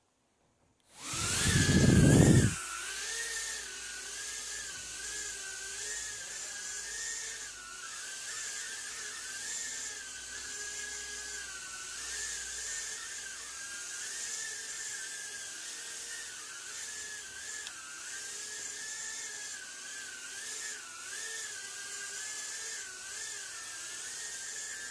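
Eachine E010 micro quadcopter's four brushed motors and propellers whining steadily in flight, the pitch wavering up and down constantly with throttle. It opens about a second in with a loud low rushing burst lasting about a second and a half.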